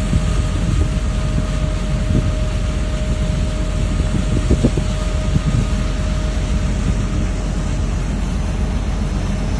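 A tanker's deck machinery running with a steady low rumble and a constant hum, with wind on the microphone.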